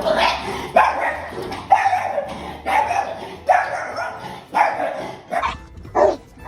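A dog barking repeatedly, about one bark a second, each bark dropping in pitch; near the end the barks come shorter and quicker.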